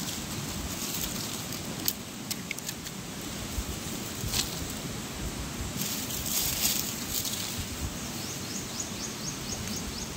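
Outdoor forest ambience: a steady rushing background with scattered clicks and brief rustling, and a quick run of short high chirps near the end.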